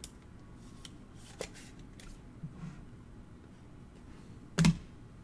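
Trading cards in plastic sleeves being handled: faint rustles and small clicks of cards sliding against plastic and each other, then one single louder knock about four and a half seconds in.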